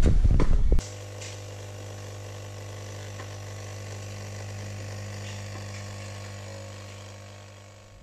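Heavy footsteps on a wooden staircase and floor, then a sudden change to a pod coffee machine's pump humming steadily as it brews into a mug, fading a little near the end.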